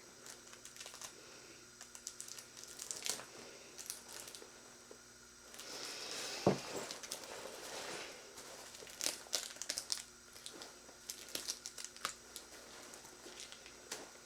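Packaging crinkling and rustling as it is handled and pulled at, in scattered crackles, with a denser rustle and a soft thump about six and a half seconds in and another flurry of crackles a few seconds later.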